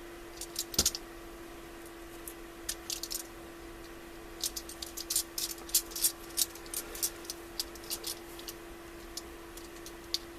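Irregular small, sharp metal clicks and taps, coming in clusters, from handling the ratchet and driving its thread-locked cover screws in by hand. A steady faint hum runs underneath.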